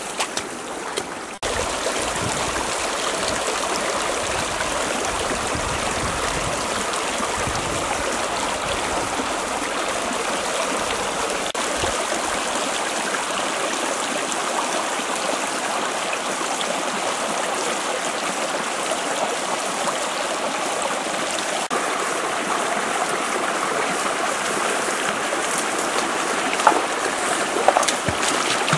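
Shallow stream rushing steadily over rocks. Near the end come a few loud splashes as someone thrashes in the water.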